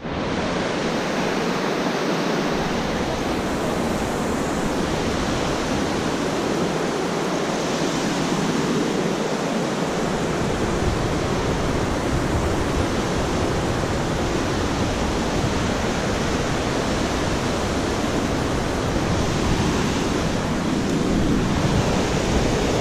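Steady rushing of fast creek water; a low rumble joins it from about ten seconds in.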